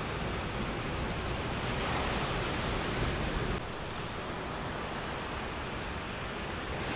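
Surf washing onto a beach with some wind on the microphone, a steady noise that drops a little in level about three and a half seconds in.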